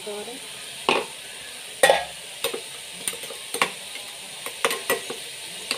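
A steel spoon stirring chopped green beans and carrots in a metal pan, clinking and scraping against the pan at irregular intervals, about one or two strokes a second, over the steady sizzle of the vegetables cooking.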